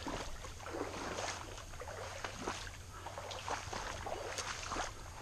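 Irregular footsteps squelching and swishing through wet swamp ground and brush.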